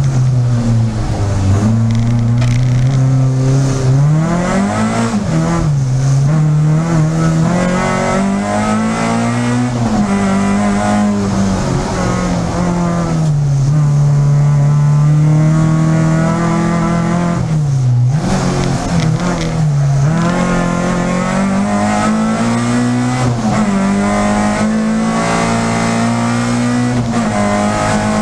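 Peugeot 306 Group A race car engine heard from inside the car, revving up and down again and again as it accelerates and lifts off through the corners, with sharp drops in revs a few times.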